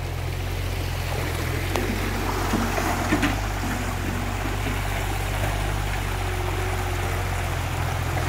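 Muddy river water rushing over rocks, over the steady low drone of a mini excavator's engine working in the stream bed. A few faint knocks come about two and three seconds in.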